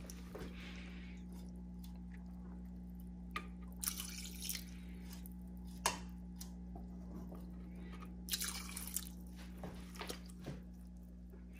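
Water splashing and dripping in a plastic bucket holding Java moss and tank water, in two short spells about four seconds and eight and a half seconds in, with a few small knocks of the bucket, over a steady low hum.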